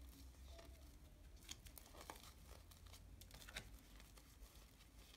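Faint handling of a small Lenormand card deck: cards slid off a fanned deck and laid face down on a table, giving a few light swishes and soft taps.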